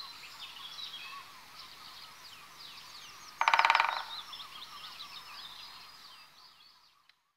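A great spotted woodpecker gives a loud, very rapid rattle lasting about half a second, partway through. Small songbirds chirp and trill throughout, fading out near the end.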